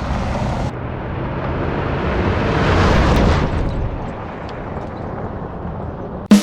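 Lifted Toyota Tacoma pickup driving off-road: a rumble of engine, tires and wind noise that swells to a peak about three seconds in, then eases off.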